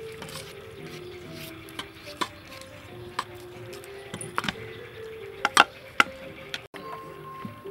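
Kitchen knife cutting broccoli florets on a metal tray, with scattered sharp taps and clicks of the blade against the tray, the loudest two near the end. Soft background music plays underneath.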